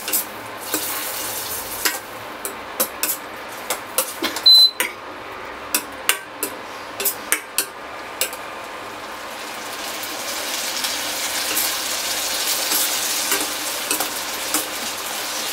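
Chopped tomatoes frying in butter in a steel kadai while a spatula stirs them, scraping and clicking against the pan, with one sharp clink about four and a half seconds in. The sizzle grows louder and steadier over the second half.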